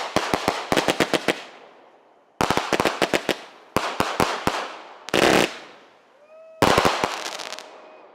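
Consumer fireworks going off: five quick volleys of sharp bangs and cracks, each dying away before the next, with a dense burst about two-thirds of the way through.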